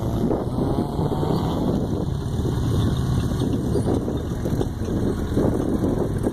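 Engine running steadily, a loud low-pitched drone that rises and falls a little.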